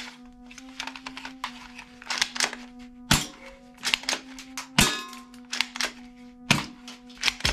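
Toy pistols being handled and set down among other toy guns: a run of clicks and clacks, with three louder knocks about three, five and six and a half seconds in, the middle one ringing briefly. Background music plays under it.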